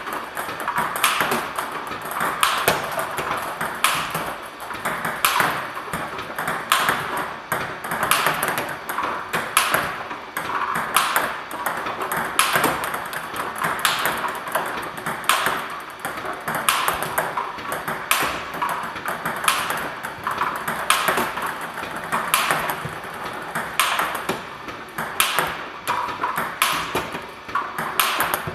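Table tennis balls bouncing on the table and struck with a TSP Hino-Carbon racket in robot practice, making sharp ping-pong clicks in a steady, regular rhythm, a little under one a second.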